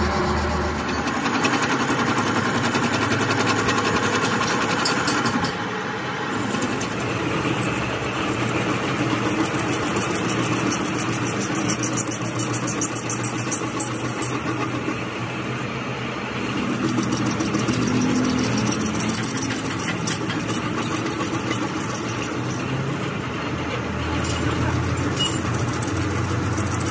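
Metal lathe running steadily as its cutting tool turns a steel shaft: a continuous mechanical machine noise, dipping briefly a couple of times.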